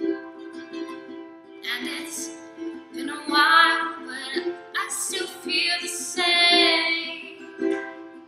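Ukulele strummed in a steady rhythm as song accompaniment, with a woman singing over it from about two seconds in until near the end.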